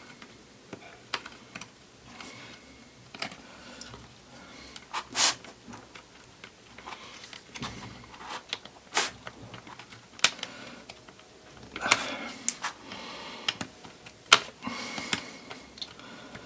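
Irregular sharp clicks and taps of hands handling laptop RAM modules and the open MacBook Pro's casing, as a memory stick is worked out of its clip-held slot.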